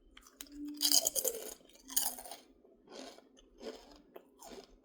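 Crunching and chewing of thick, hard kettle-cooked potato chips in the mouth, with loud crunches about a second in and again around two seconds, then softer, irregular chewing.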